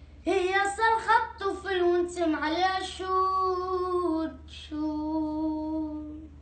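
A boy singing without accompaniment: a phrase with sliding, ornamented turns, then two long held notes before his voice stops near the end.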